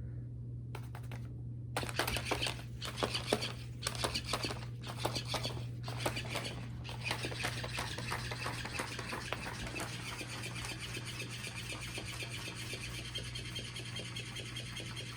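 Paper rustling and scratching as cats play with an electronic flopping fish toy, starting about two seconds in and turning into a continuous rapid crackle about halfway through. A steady low hum runs underneath.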